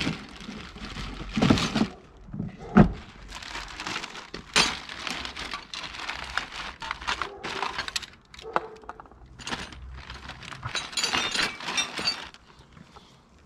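Pliers and hands working on an ATV handlebar grip to remove an old heated grip: irregular sharp clicks, knocks and scraping, the loudest snaps in the first few seconds.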